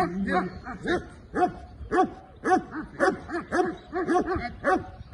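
Belgian Malinois barking in a rapid, steady run of about three barks a second.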